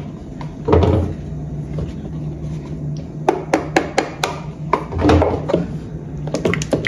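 Kitchen handling knocks while cartons of cream are emptied into a pot: two dull thumps, about a second in and about five seconds in, and runs of sharp taps of carton and utensil against the pot's rim in between and near the end, over a steady low hum.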